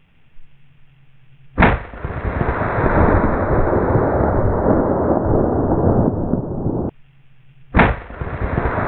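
Two .30-06 rifle shots, about six seconds apart: each a sharp crack followed by a long, loud rumble. The first rumble cuts off abruptly about five seconds later.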